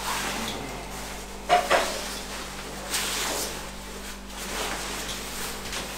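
Clothing rustling as a jacket is pulled off and folded, with two sharp clicks or knocks about a second and a half and three seconds in. A faint low steady hum runs underneath.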